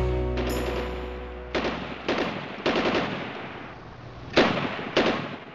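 The last held notes of a music track die away, then gunfire: three short bursts of automatic fire about half a second apart, followed by two louder shots near the end, each echoing briefly.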